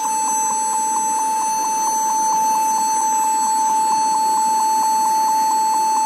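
Dell laptop beeping rapidly and without a break at power-on: one high tone pulsing about six times a second while the screen stays black. It is the error beep of a faulty keyboard.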